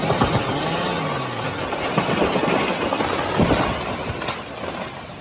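Chainsaw engine coming off full revs and falling back toward idle about a second in, followed by a run of irregular cracks and knocks that fade toward the end.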